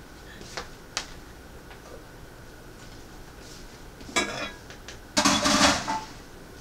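Dishes and a cooking pot being handled at a kitchen sink: a couple of light knocks in the first second, a short clank about four seconds in, then a louder clatter lasting under a second.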